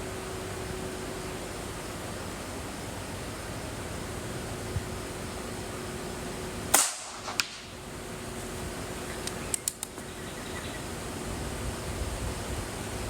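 Shot from the S1721 air pistol firing an 18-grain pellet: one sharp crack about seven seconds in, then a smaller crack about half a second later. A few light clicks follow a couple of seconds after.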